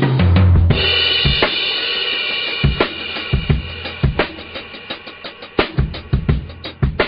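Music with a drum-kit beat: kick and snare hits, a low bass note at the start, and a cymbal crash about a second in that rings on and fades over the next few seconds.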